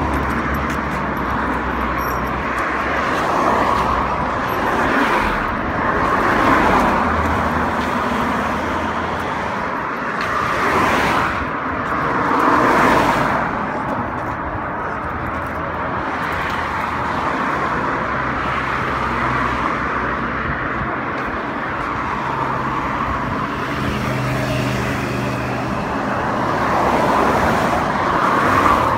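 Road traffic: several cars passing one after another on a road, tyre and engine noise swelling and fading over continuous traffic noise.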